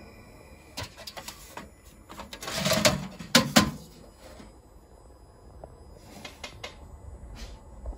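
Handling noise as a coated mirror sheet is lifted from a laser cutter's metal honeycomb bed: a few light clicks, then a louder burst of knocking and scraping about two and a half to three and a half seconds in, followed by scattered soft ticks.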